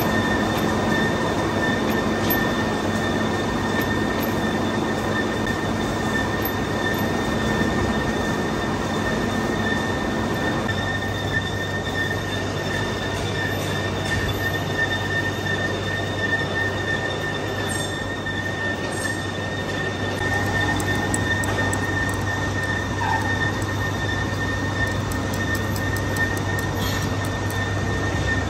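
Old engine lathe machining a large grooved steel roller: steady machine noise with a continuous high-pitched metallic squeal and a low hum underneath.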